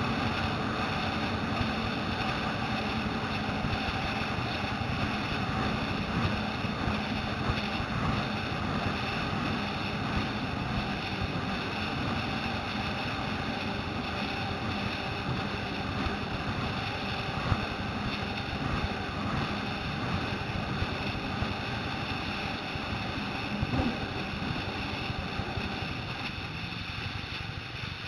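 Watercraft engine running steadily at speed, with wind buffeting the microphone and water rushing against the hull.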